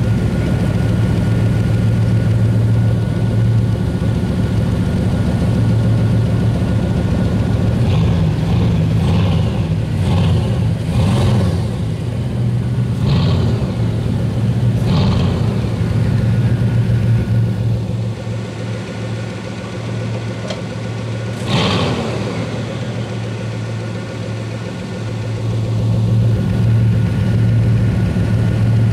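Bugatti Veyron 16.4's quad-turbo W16 engine idling with a steady low pulse, with several short throttle blips in the middle and one sharp rev that falls away about three quarters of the way through.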